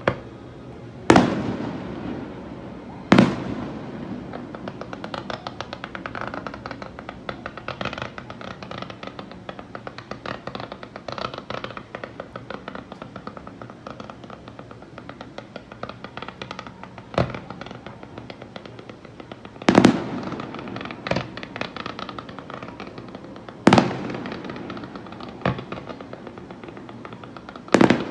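Aerial fireworks: about eight sharp shell bursts, each trailing off in an echo, with a long stretch of dense rapid crackling in the middle.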